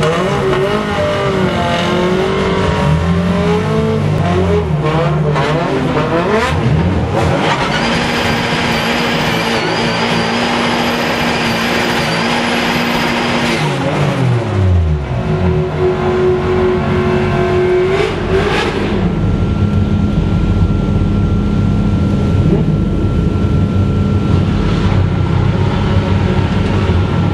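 Drift car engine revving hard and held at high revs for several seconds, with tyre squeal, while the car slides. About halfway through the revs fall away, and the engine settles to a low, steady idle.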